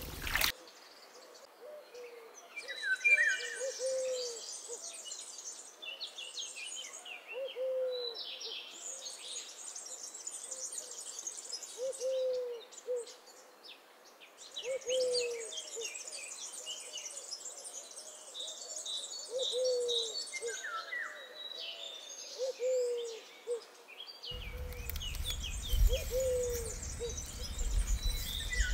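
Birds calling: a short, low hooting call repeats every few seconds under long runs of busy, high-pitched chirping birdsong. A low rumble joins near the end.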